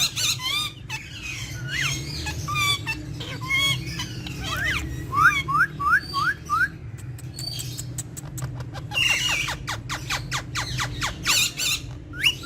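Pet parrots chirping and whistling in short gliding calls, with a quick run of five rising whistles about five seconds in and a rapid series of sharp clicks about nine seconds in.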